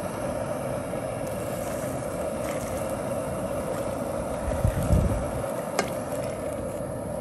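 A steady hum runs under broth being poured from a pot into a rice-cooker pot of raw rice. A brief low bump comes about five seconds in.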